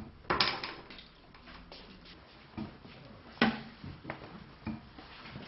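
A broom sweeping the floor: a few short scrapes and knocks, the loudest about three and a half seconds in.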